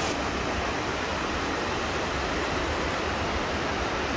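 Wind buffeting the microphone outdoors: a steady rushing noise with an uneven low rumble.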